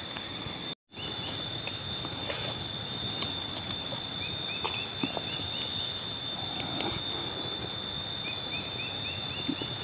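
Outdoor background in which a bird gives two runs of short repeated chirps, about four or five a second, over a steady high whine, with scattered light clicks and taps of food being cut and handled by hand. The sound drops out completely for a moment near the start.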